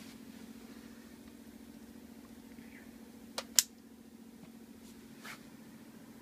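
Two sharp clicks in quick succession a little past halfway, the second louder, as the night light's inline cord switch is clicked and the light goes dark, over a steady low hum.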